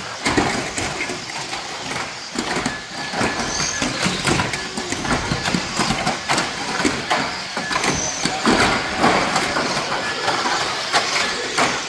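Radio-controlled banger cars racing on a carpet track, with frequent sharp knocks and clatter as their plastic bodies crash into each other and the track boards, over voices in the hall.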